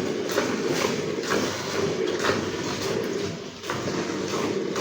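A cow being milked by hand: rhythmic squirts of milk striking a pail, about two a second.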